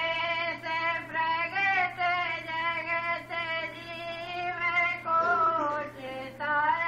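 A high voice singing a devotional shabad in long, held, slightly wavering notes with short breaths between phrases, over a steady low hum.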